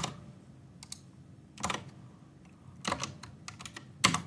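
Computer keyboard keystrokes: a few separate, sharp key presses about a second apart, the loudest at the start and near the end.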